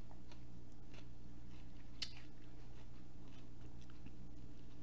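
Close-miked chewing of a BBQ pork sandwich: faint, scattered wet mouth clicks, with a bite into the sandwich near the end. Under it runs a steady low electrical hum.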